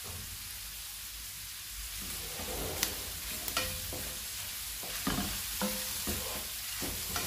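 Cuttlefish sizzling in a hot metal frying pan while a wooden spatula stirs and scrapes them, with a couple of sharp taps of the spatula on the pan about three seconds in.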